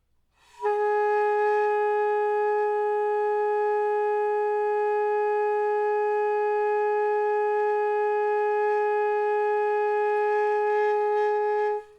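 Alto saxophone holding a single steady long tone of about ten seconds, with even air and no change in pitch or loudness. It starts about half a second in and stops just before the end.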